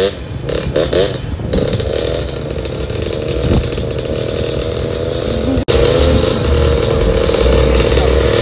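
Small motorcycle engines running at a steady speed while riding, with a slight wavering in pitch; the sound cuts out for an instant just after halfway, then resumes.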